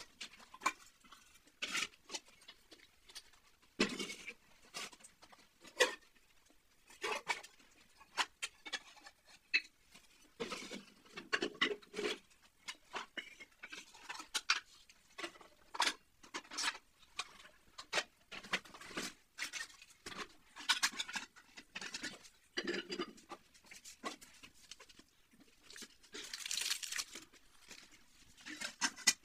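Plates, bowls and plastic containers being set one after another into a plastic dish-drying rack: irregular clinks, knocks and clatters, with a brief hiss near the end.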